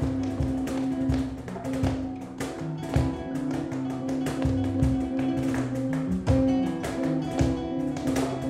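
Flamenco guitar music: plucked notes over a held low note, with many sharp percussive strikes among them.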